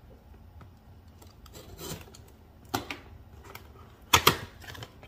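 A box cutter scraping through the seal on a paperboard retail box, with light clicks and rustles as it is handled. Near the end there is a sharp double snap as the box's top flap is pried open.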